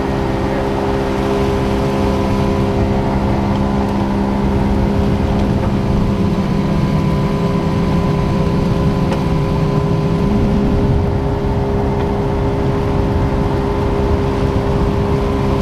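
Duck boat's motor running under way, a steady engine drone that eases back in pitch for a few seconds midway and then picks up again.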